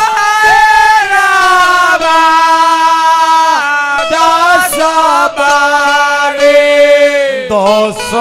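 A man singing long, drawn-out notes of a Bhojpuri chaita devotional song through a microphone and PA, with harmonium accompaniment. The melody shifts to new held notes about four seconds in and again near the end.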